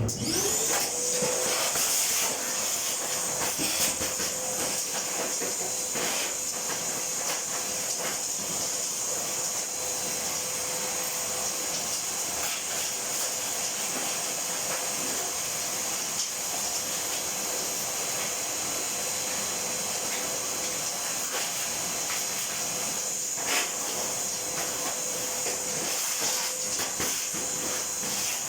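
An electric motor spins up and then runs steadily, with a strong airy hiss and a steady whine.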